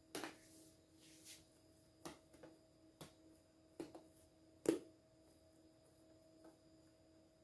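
A few soft taps and knocks from handling dough and a plastic bench scraper on a table, the loudest about two-thirds of the way through, over a faint steady hum.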